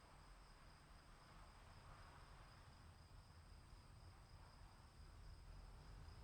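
Faint, steady chorus of crickets, a continuous high trilling at two pitches, over a low rumble.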